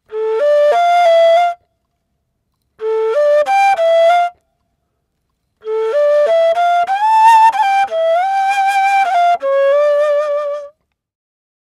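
Solo ney, the end-blown reed flute, playing three phrases of stepping notes that climb in pitch, with short silences between them. The third phrase is the longest and ends on a held, wavering note. It is recorded through a Neumann M 149 microphone and an Avalon VT-737sp preamp.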